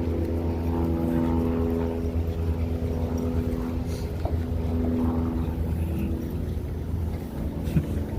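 Banner tow plane's propeller engine droning as it passes: a steady pitched hum that fades over the first couple of seconds, over a constant low rumble.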